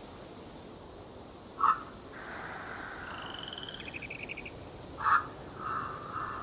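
Dawn forest chorus: a short, loud animal call sounds twice, about three and a half seconds apart, over softer bird song that includes a quick rattling trill between the two calls.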